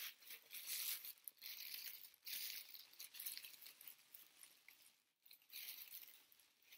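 Tissue paper rustling and crinkling in irregular bursts as it is pulled open and unfolded from around a small wrapped ornament, with a brief lull about five seconds in.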